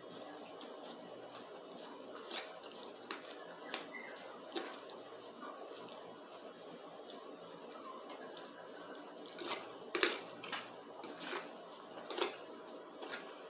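Close-up eating sounds of spaghetti being chewed, with the fork clicking in a plastic plate: a string of short wet clicks and smacks over a faint steady hum, busiest about ten seconds in.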